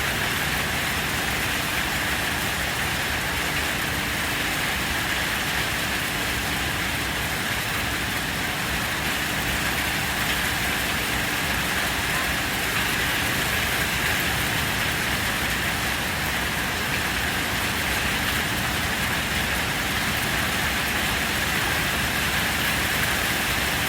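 Heavy rain pouring steadily, an even unbroken hiss with no let-up.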